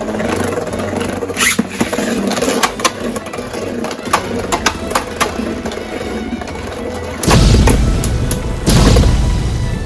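Beyblade spinning tops clashing, with repeated sharp clicks and knocks over background music. Two loud noisy blasts, each about a second long, come about seven and nine seconds in.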